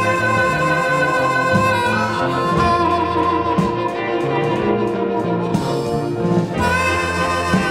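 Chicago electric blues band playing an instrumental passage with no singing: long held lead notes over a walking bass line and drums. The held lead drops out about three and a half seconds in and comes back near the end.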